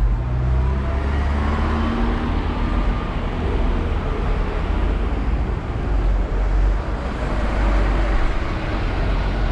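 Street traffic: cars and a van driving past close by, a steady mix of engine hum and tyre noise.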